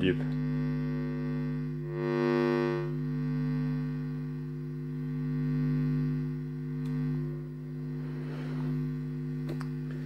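50 Hz mains hum from the Marantz CRS-8000 boombox's speakers, a low buzzing hum induced into its audio circuits by the stray magnetic field of a nearby power transformer. It rises and falls in strength as the transformer is held in different positions, and is loudest about two seconds in.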